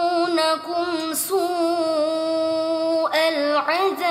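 A young woman's voice chanting Quranic recitation (murottal), unaccompanied, in long held notes with wavering ornaments and pitch glides.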